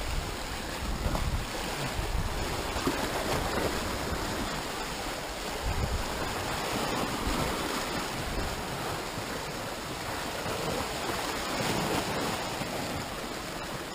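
Sea surf washing and breaking over rocks at the water's edge: a steady rushing wash of water.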